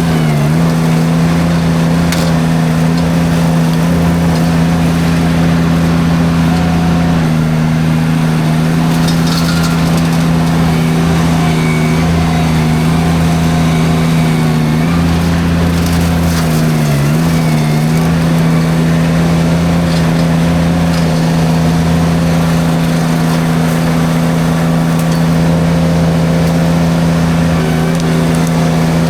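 Derette V1000 mini skid steer's engine running steadily at high revs while its drum forestry mulcher cuts through brush. The engine note dips briefly twice as the mulcher loads up, and a few sharp cracks of wood being struck sound over it.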